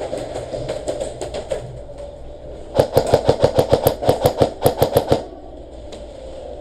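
Airsoft gun firing a rapid string of about fifteen sharp shots, some six or seven a second, starting a little under three seconds in and stopping about two and a half seconds later.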